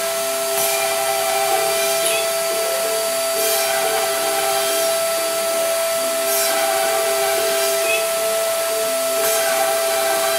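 CNC router machining holes in an MDF pegboard: the spindle runs with a steady whine while the stepper motors whine in short, changing tones as the gantry moves between holes. A brief cutting rasp comes roughly every second and a half as the bit plunges into the board, over a steady hiss.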